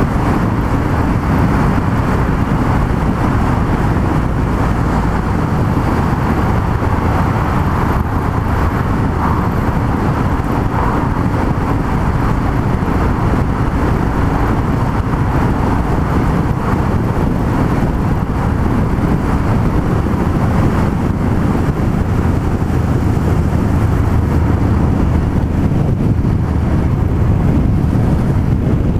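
Yamaha MT-03 660's single-cylinder engine running steadily at cruising speed, mixed with road and wind noise, with no marked revving.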